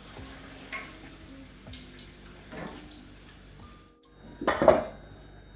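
Soft background music, with light dripping and clinking as fried zucchini pakoras are lifted from hot oil in a wire spider strainer. After a brief drop-out, a single short loud knock comes about four and a half seconds in.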